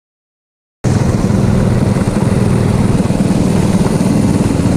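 Silence, then just under a second in the sound of a racing kart's engine cuts in abruptly and runs on loud and steady as the kart is driven along the track. It is heard from the kart's own onboard camera.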